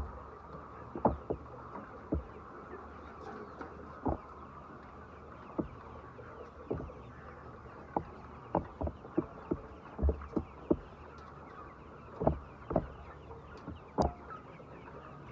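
Chickens, heard over a steady background hiss, with about twenty short, sharp taps or knocks at irregular intervals.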